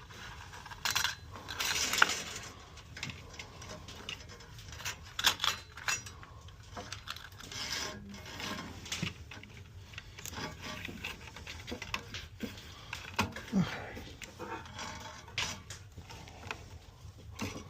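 Irregular clicks, knocks and rubbing of metal and plastic parts as a small band saw's blade is refitted and its tensioner adjusted by hand. The loudest knocks come in the first two seconds and again around five to six seconds in.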